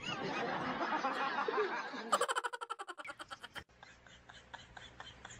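A quick, rapid snickering laugh about two seconds in that fades out within a second and a half, over a haze of background noise.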